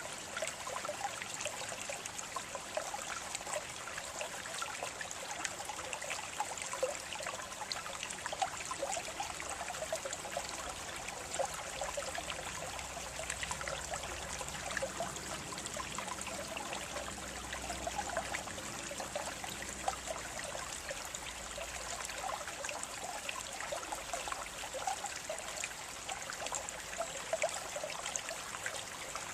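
Shallow water trickling and splashing steadily over stones, a continuous babbling with many small bright splashes.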